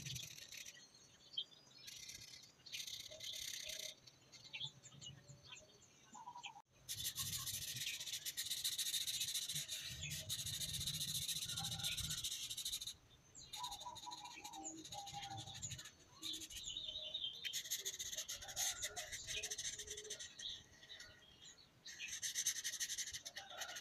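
Felt-tip marker scribbling on paper: bursts of quick back-and-forth scratchy strokes with short pauses between them.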